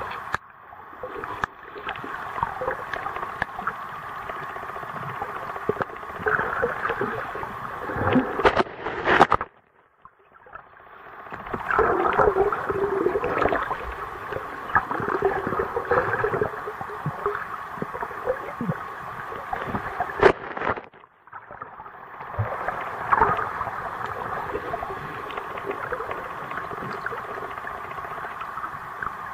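Muffled underwater ambience picked up by a waterproof camera held under lake water: a steady gurgling water noise with scattered small clicks and knocks. It drops almost to silence twice, once about a third of the way in and briefly again about two-thirds of the way in.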